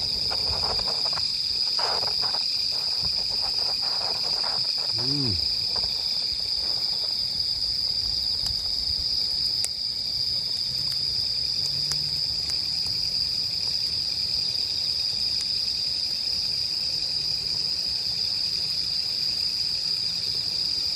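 A dense chorus of autumn insects chirring: a steady, high-pitched drone that carries on unbroken.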